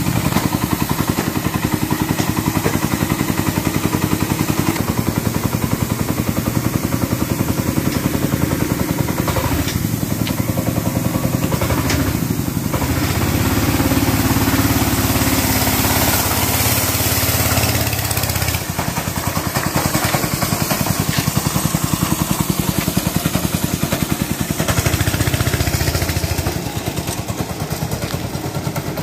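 Small single-cylinder engine of a homemade go-kart running as the kart is driven, its pitch rising and falling with the throttle. It runs hardest midway through, then eases off suddenly.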